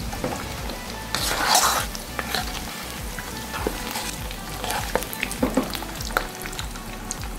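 Hot oil sizzling in a wok as fried mussels are scooped out with a metal slotted ladle, which scrapes and clicks against the pan. The sizzling and scraping are loudest about a second and a half in.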